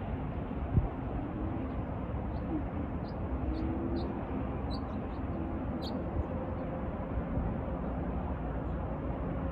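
A few short, high bird chirps in the middle of the stretch, over a steady low rumble of wind and distant traffic.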